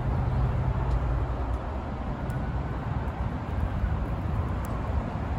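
Low rumble of wind on the microphone with a steady vehicle hum that fades out about two seconds in, and faint scattered ticks of raindrops on concrete pavement.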